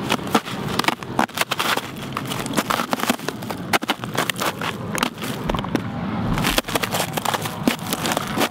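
Footsteps in sneakers crunching and crackling through a frozen crust of icy snow, the ice cracking underfoot with each step.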